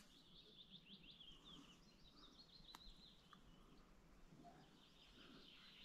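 Faint songbird singing: a quick run of high chirps over the first couple of seconds, then softer song continuing, with a single faint click near the middle.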